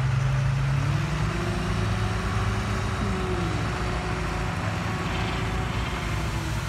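Diesel dump truck's engine running steadily while its hydraulic hoist tips the bed and dumps a load of soil; the engine note rises slightly about a second in.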